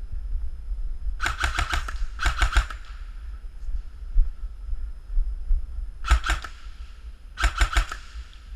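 Airsoft gun firing four short bursts of rapid shots: two close together about a second in, then two more near the end.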